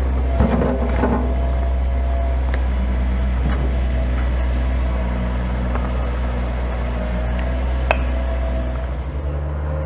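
Diesel engine of a compact tracked loader running steadily near the microphone, with a brief clatter of riprap stones about half a second in and a single sharp clack of stone on stone near the end.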